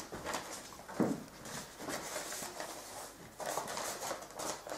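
Sheets of paper being handled and folded by hand, rustling in several short spells, with a dull thump about a second in.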